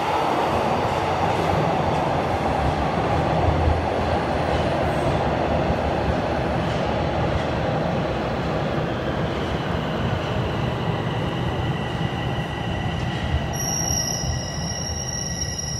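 Toronto subway train moving at the station platform: a loud, continuous rushing rumble. Steady high whining tones come in over the last few seconds.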